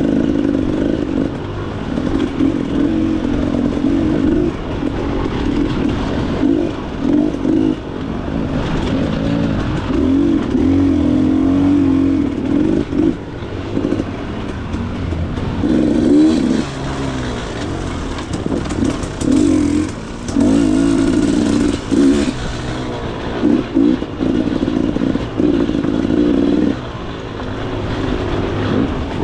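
Dirt bike engine running hard on a trail ride, revving up and dropping back again and again as the throttle is opened and chopped.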